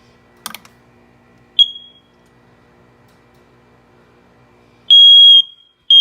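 Smoke alarm being tested: a click, a brief high chirp, then about three seconds later a loud, piercing half-second beep, the first of its alarm pattern, with the next beep starting right after.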